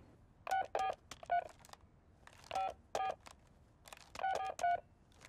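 Push-button telephone being dialled: about ten short keypad beeps in small groups with pauses between them.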